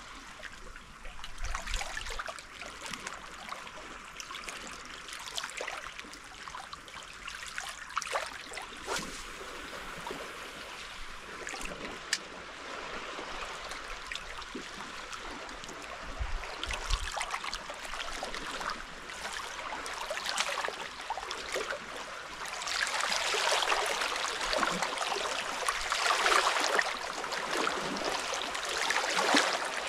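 Small waves of calm sea water lapping and trickling against shoreline rocks, swelling louder for several seconds about three-quarters of the way through.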